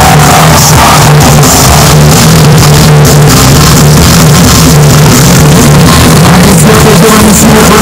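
Loud rock-electronic music with a steady beat and a stepping bass line, played over a stadium PA system.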